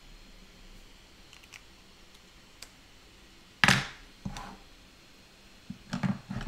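Desk handling noise: a few faint ticks, then a sudden loud knock a little past halfway and a smaller one about half a second later, as the black fineliner is put down and a white pen is taken up.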